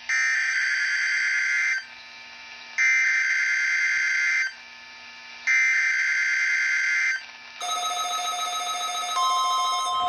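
NOAA Weather Radio SAME digital header sent three times through a weather radio's speaker: three buzzy data bursts of about 1.7 s each, about a second apart, marking the start of a Required Weekly Test. About 7.5 s in, a weather alert radio's own alarm starts, a rapidly pulsing tone, and a steady higher tone joins about 9 s in.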